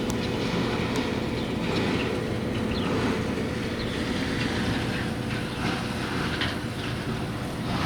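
Heavy machinery running steadily, with short high metallic squeaks scattered throughout.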